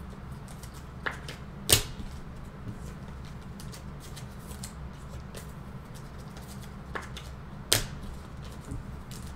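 Trading cards being handled at a table: a few sharp snaps and clicks, the two loudest about six seconds apart, over a steady low electrical hum.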